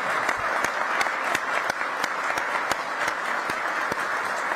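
Audience applauding steadily, a dense patter of many hands clapping with single sharper claps close by standing out.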